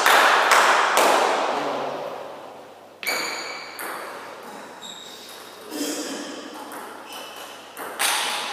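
Table tennis ball strikes echoing in a large hall: a run of evenly spaced knocks in the first second, then the clicks of a rally, with ball on bat and table, from about three seconds in.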